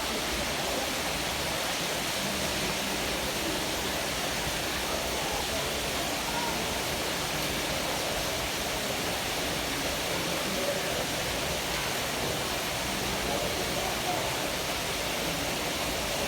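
Steady rushing noise like running water, with faint voices underneath.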